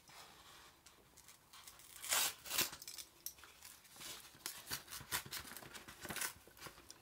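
Paper mailing envelope being slit with a utility knife and torn open, with irregular paper tearing and crinkling. The loudest rips come about two seconds in.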